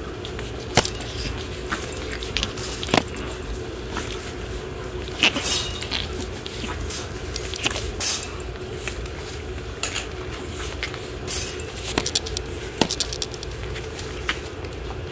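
Shih Tzu puppies scuffling about a wire playpen: scattered sharp clicks, scuffs and knocks from paws, puppy pads and the kibble bowl, with two louder clatters about five and eight seconds in. A faint steady hum runs underneath.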